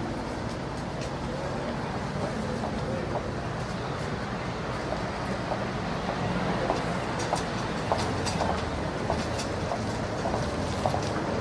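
Light city street ambience: a steady low rumble of traffic, with pedestrians' footsteps clicking past from about halfway through.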